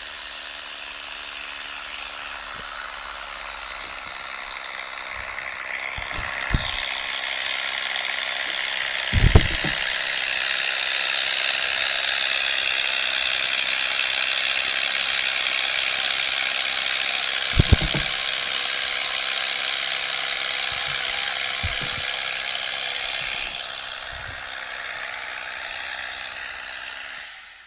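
New Holland 3630 tractor working under load while pulling a 22-disc harrow through the soil, the engine running beneath the steady rattle and scrape of the harrow's discs. It grows louder as the tractor draws near, peaks midway and eases off in the last few seconds. A few dull thumps stand out, the loudest about nine seconds in and again around eighteen seconds.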